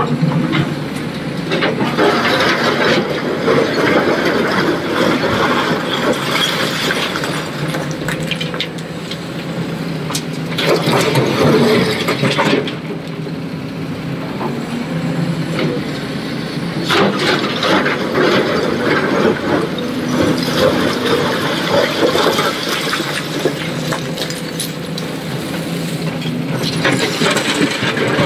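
Heavy diesel machinery at work, an excavator loading a tipper truck: a steady engine note with louder noisy surges every five to seven seconds as the machine works through its loading cycle.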